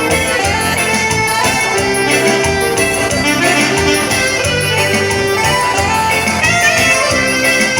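Band music: an instrumental dance tune with a steady beat, before the vocals come in.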